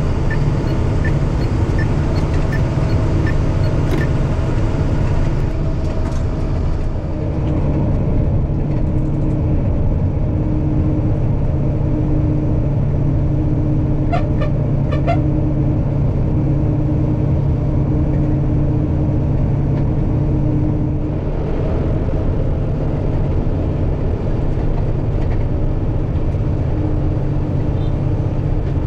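Tata heavy truck's diesel engine running steadily at highway cruising speed with road noise, a continuous low drone. There is a light regular ticking in the first few seconds, and two short horn beeps about halfway through.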